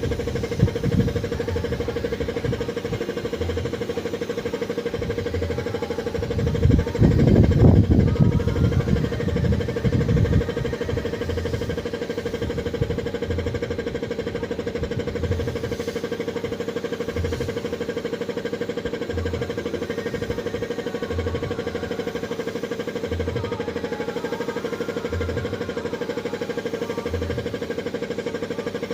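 Steady machine hum, with louder low rumbling between about 6 and 10 seconds in and faint low thumps every second or two later on.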